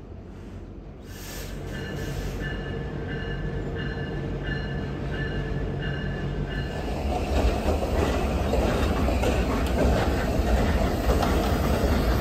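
Freight train hauled by Canadian Pacific diesel locomotives approaching and passing close by. Its engine and wheel rumble grows louder from about a second in and swells again about seven seconds in as the locomotives draw level. A short high ringing tone repeats over and over through the first half.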